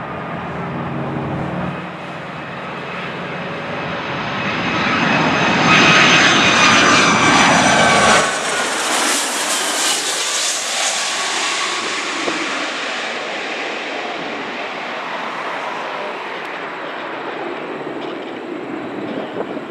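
Boeing 757-200 jet airliner passing low overhead on landing approach. The noise of its turbofan engines builds to a loud peak about six to eight seconds in, with whining tones falling in pitch as it goes by, then settles into a steadier rush as it continues onto the runway.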